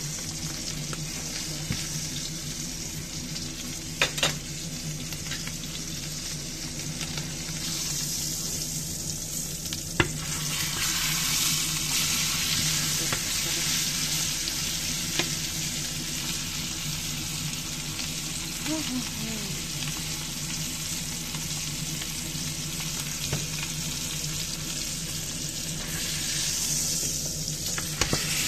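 Bone-in Angus beef steak sizzling in oil and fat in a cast-iron skillet, the sizzle growing louder about ten seconds in. A few sharp knocks of a utensil against the pan, about four and ten seconds in, over a steady low hum.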